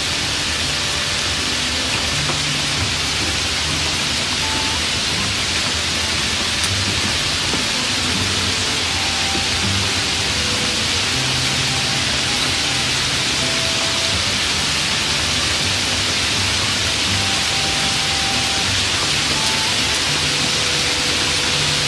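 Hot oil sizzling steadily in an aluminium wok as chopped garlic and chili are stir-fried.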